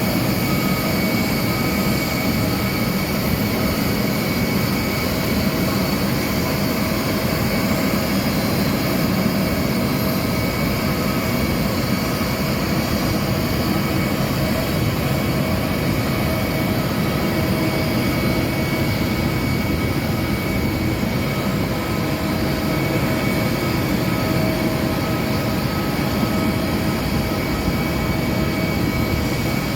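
Aircraft turbine noise during a pushback: a steady roar with several high whining tones held level, unchanging throughout.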